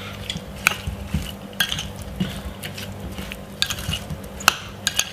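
A utensil mixing potato salad with mayonnaise in a bowl, with scraping and sharp clinks against the bowl at irregular intervals.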